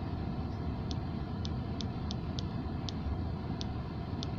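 Short, high ticks from a VW Passat B7's instrument cluster, one for each step as the multifunction display's settings menu is scrolled, about eight at uneven spacing. A steady low rumble runs underneath.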